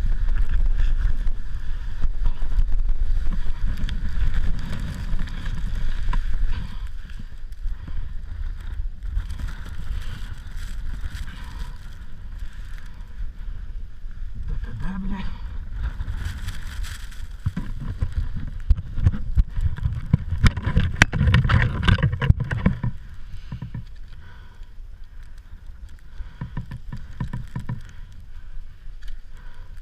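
Gusty wind buffeting the microphone: a low, uneven rumble that swells strongly twice and eases off near the end.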